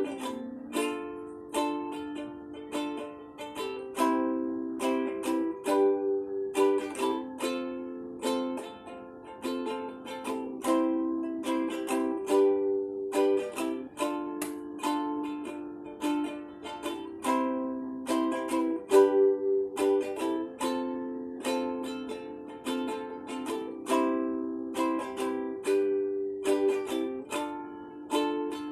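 Instrumental music: a small plucked string instrument strums chords in a steady rhythm, with no bass and no singing.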